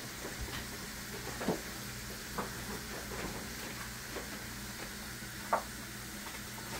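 Dried beef (carne seca) frying in hot oil in a stainless steel skillet, a steady sizzle, with a few short clicks of a plastic slotted spatula against the pan as the meat is stirred, the loudest near the end.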